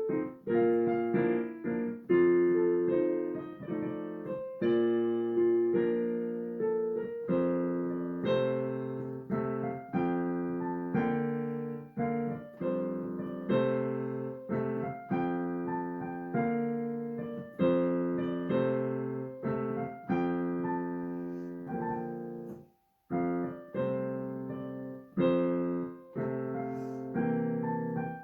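Solo piano playing a flowing piece of chords and melody, each note struck and left to ring. The playing breaks off for a moment about 23 seconds in, then resumes.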